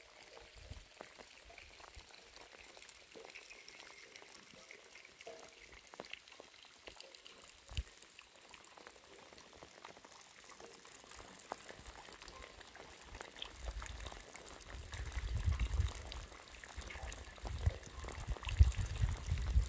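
Steady rain falling, a faint pattering hiss of many small drops. In the last third it is joined by louder, uneven low rumbling bursts.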